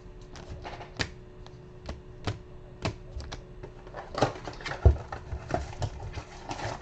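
Scattered light clicks and taps from a cardboard blaster box and card packs being opened and handled.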